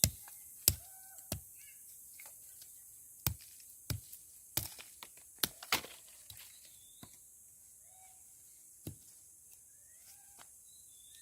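A string of sharp knocks or thuds, about nine, close together in the first six seconds and one more near the nine-second mark. Short bird chirps sound between them.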